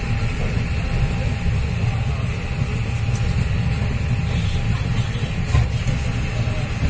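Passenger train running steadily, a continuous low rumble of wheels and carriage heard from inside the coach by an open window, with one louder knock near the end.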